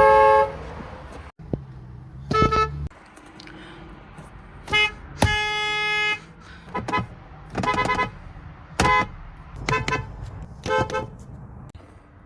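Car horns of Korean cars honking in a string of separate toots, most under half a second and one held for about a second near the middle. The horns differ in pitch from one to the next, as different cars are sounded.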